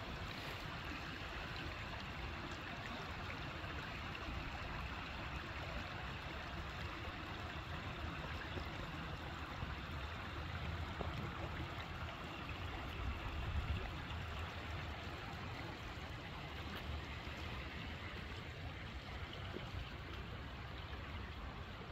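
Shallow river running over a stony bed and small riffles: a steady rush and babble of water.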